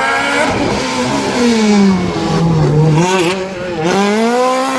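Hill-climb race car engine at high revs. The revs fall away over about two seconds, then climb steadily again as the car accelerates.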